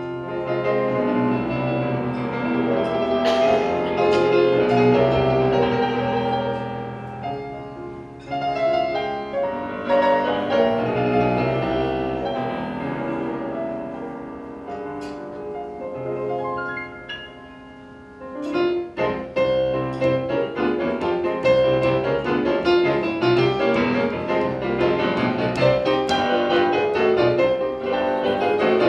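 Solo piano piece played on a digital stage piano: slow, full chords that thin out and grow softer toward the middle, then a sudden louder, busier passage with quick notes from about two-thirds of the way in.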